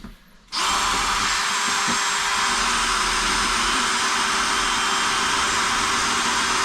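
Power drill running steadily at full speed, starting about half a second in, boring deeper into a wall where a metal plate behind the drywall is thought to be blocking the screws.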